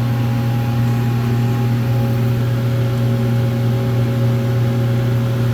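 Steady low machine hum, level and unchanging throughout.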